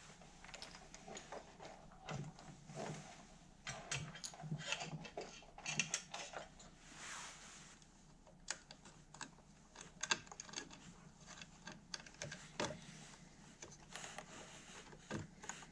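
Irregular small clicks and rustles of hands working electrical wires and a plastic cable gland into an electric motor's terminal box, with a short swish about seven seconds in.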